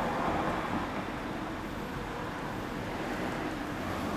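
Honda CBR400R's 399 cc parallel-twin idling steadily through an Arrow aftermarket muffler, with no revving.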